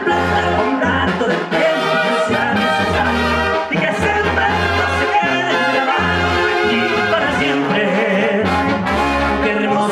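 Banda music: a brass section of trumpets and trombones playing over steady low bass notes that change about every half second to a second, typical of banda's tuba.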